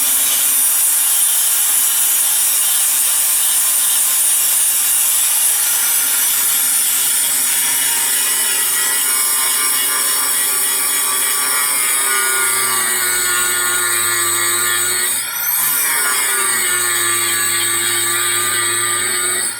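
Electric power tool cutting, most likely into truck sheet metal, with a steady high whine. The motor note sags and recovers about fifteen seconds in and again at the end, as the tool eases off and picks back up.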